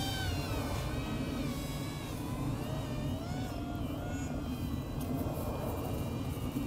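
Electric motor and propeller of a small RC foam plane whining in flight. The pitch drops around the start and wavers a few seconds in as the throttle changes, and the whine grows fainter as the plane flies off, over a steady low rumble.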